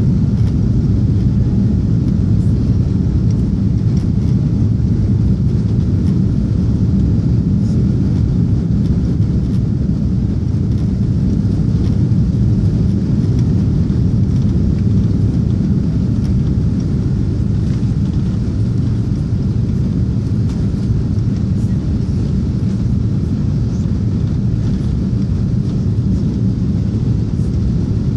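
Steady cabin noise inside an Airbus A340 climbing after takeoff: the deep, even drone of its four jet engines and the rush of air past the fuselage.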